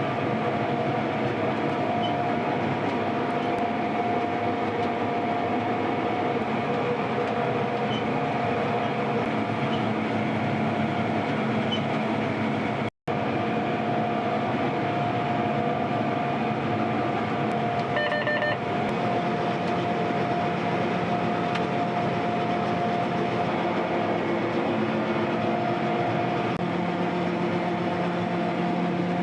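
Combine harvester running steadily while harvesting wheat, a dense machine drone with a steady hum over it. The sound cuts out for an instant partway through, and a short electronic beep sounds a few seconds later.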